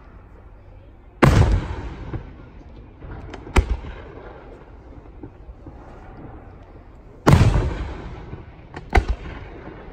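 Aerial firework shells bursting overhead: two loud booms, each dying away in a long rolling echo, each followed a couple of seconds later by a sharper, shorter bang.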